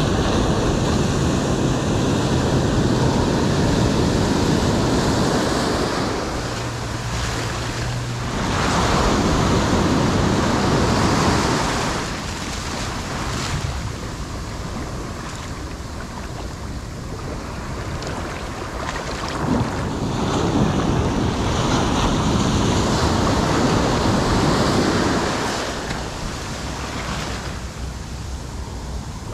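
Ocean surf breaking and washing up the beach in shallow water, swelling loud and easing off again in several surges.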